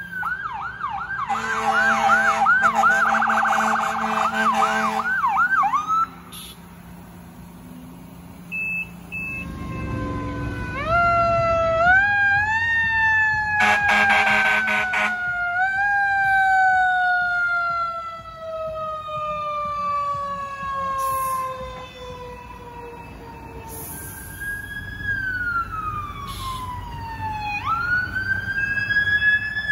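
Fire engine responding with an electronic siren on fast yelp and a long air horn blast for the first few seconds. Then a Federal Q2B mechanical siren winds up in steps and slowly coasts down, with a second air horn blast about fourteen seconds in and another wind-up near the end.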